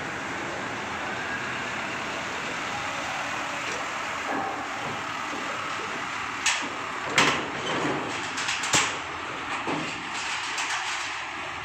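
A heavily loaded Isuzu Elf truck's diesel engine running as the truck drives slowly onto a ferry's steel loading ramp. From about six seconds in there is a quick series of sharp clanks as it rolls onto the ramp.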